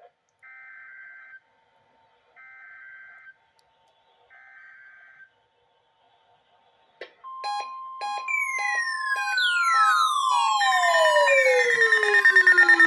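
Three one-second bursts of warbling Emergency Alert System (SAME) header data tones from NOAA Weather Radio, a second apart, announcing a required weekly test. From about 7 seconds in comes a louder alarm: a steady tone near 1 kHz with regular beeps, joined from about 8 seconds by several tones sliding down in pitch, layered and growing louder.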